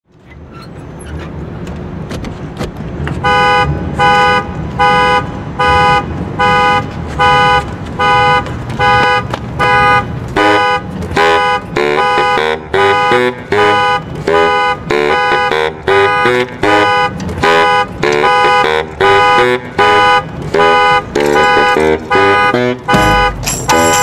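A car alarm sounding a repeated single-tone beep, a little over one a second, about three seconds in. From about ten seconds in, a baritone saxophone plays a syncopated riff in time with the alarm.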